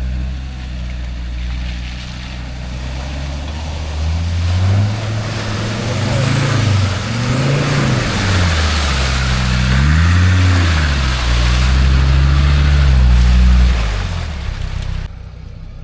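Four-wheel-drive's engine revving up and down several times under load as it pushes through a muddy bog hole, with a rushing hiss of mud and water through the middle; the revs fall away near the end.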